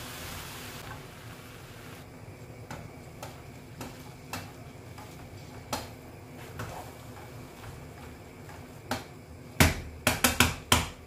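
A wooden spoon stirring a thick minced beef and vegetable filling in a metal pot, knocking against the pot now and then. A faint sizzle dies away in the first second or two, and near the end comes a quick run of louder knocks of the spoon on the pot.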